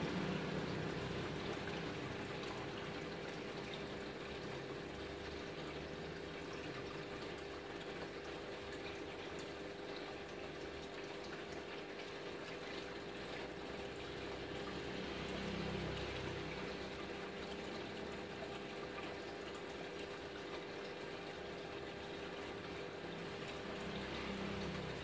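Aquarium filter or pump running: a steady trickle of moving water over a constant low hum, swelling slightly a little past halfway and again near the end.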